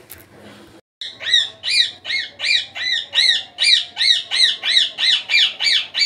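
Indian ringneck parakeet calling: a loud, rapid, even series of short calls, about three a second, each rising then falling in pitch, starting about a second in.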